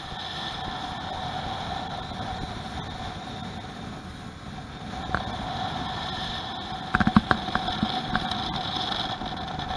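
115 hp outboard motor running steadily as the boat planes at speed, with wind and water rushing past. A quick run of knocks about seven seconds in.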